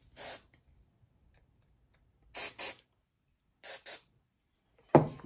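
Aerosol carburetor cleaner sprayed through a thin straw into a Walbro chainsaw carburetor in short hissing spurts: one near the start, then two quick pairs, flushing its passages clean. A sharp knock near the end is the loudest sound.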